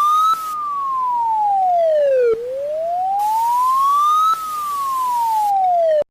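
Emergency alert alarm: a single wailing siren tone that slides slowly up and then down, each rise and each fall taking about two seconds, with a loud hiss coming and going over it. It cuts off abruptly near the end.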